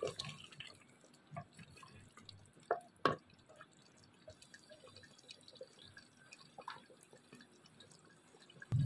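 Faint bubbling and popping of chicken curry simmering in a clay pot, stirred with a wooden spoon, with a couple of sharper clicks about three seconds in.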